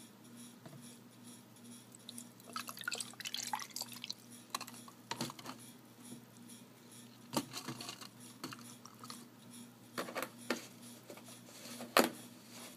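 Orange juice poured from a plastic jug into a plastic tumbler over ice: quiet trickling liquid with a few sharp clicks and knocks scattered through it.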